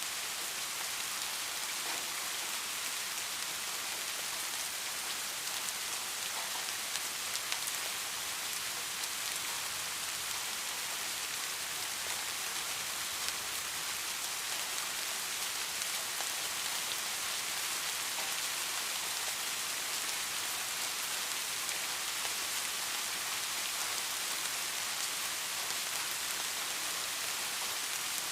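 Steady rain falling, an even hiss with a few individual drops ticking out from it.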